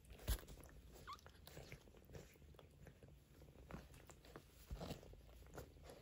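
Faint small clicks and rustles from a Maine Coon mother cat and her two-week-old kittens, with a sharper click about a third of a second in and a few more taps near the end.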